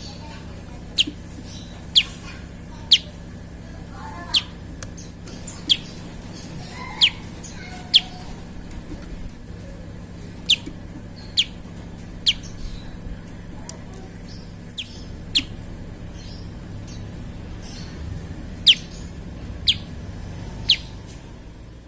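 Prinia (prenjak) giving short, sharp, high calls, each a quick downward sweep, about one a second. A steady low hum runs underneath.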